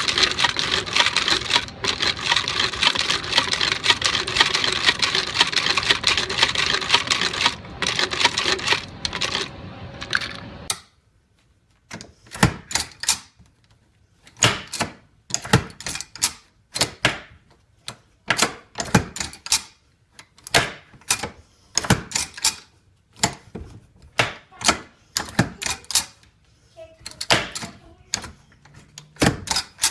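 Hand-operated machine-gun ammunition belt loader: a dense metallic rattle for about ten seconds, then sharp metal clacks about once a second as the handle is worked back and forth to push cartridges into the belt pockets.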